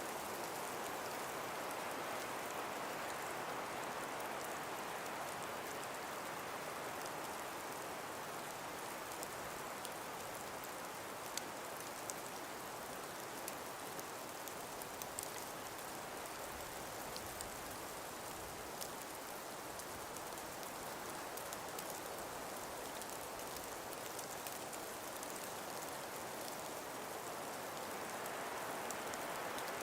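Steady, even breeze through an ice- and frost-covered forest, with a few faint scattered ticks.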